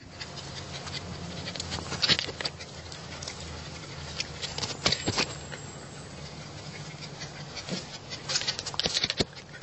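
Alaskan malamute puppies' claws clicking on a concrete floor close by, in quick clusters about two seconds in, around five seconds, and again just before nine seconds.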